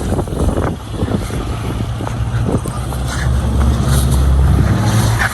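Supercharged Nissan Frontier V6 engine running at low revs, rising in level over the last couple of seconds, with wind buffeting the microphone.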